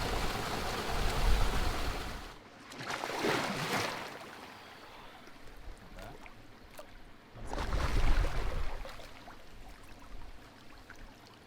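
Splashing and running water in a rock pool below a waterfall, rising in surges about three seconds in and again about eight seconds in, with rumble on the microphone.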